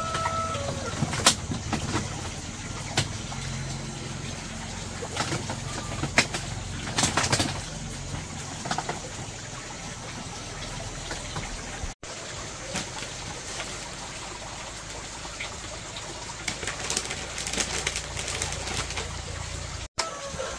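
Doves cooing, with scattered sharp clicks and knocks over it.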